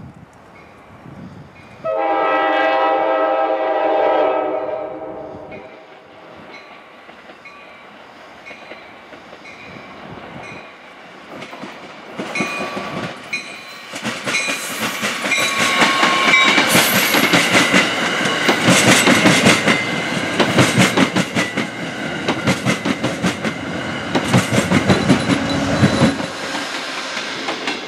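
Amtrak passenger train sounding its horn, a chord held for about three seconds starting about two seconds in, then passing close by from about twelve seconds on with wheels clacking rapidly over the rail joints. Its diesel locomotive pushing at the rear, a GE Genesis, goes by near the end, and its low engine drone cuts off as it passes.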